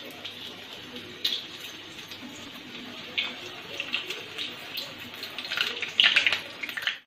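Paste-coated chicken pieces deep-frying in hot oil: a steady sizzle with sharp crackles and spatters, loudest around six seconds in.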